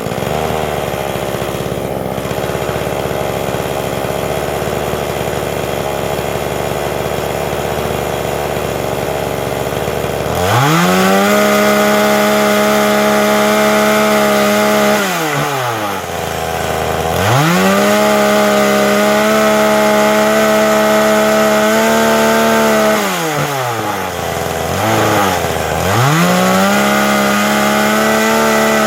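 Forest King gas chainsaw with a 20-inch bar running steadily at first, then opened up three times, about ten, seventeen and twenty-six seconds in, its pitch climbing, holding high for several seconds and sinking back between. These are cuts through small firewood held in a chainsaw jig.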